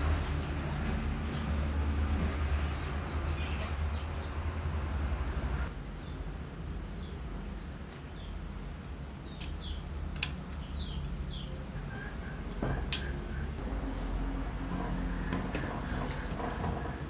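Light clicks and knocks of metal parts being handled as an old Makita groove cutter's motor is reassembled, the armature sliding into the motor housing, with one sharp click about two-thirds of the way through. Behind it are a low hum that drops away about a third of the way in and small birds chirping.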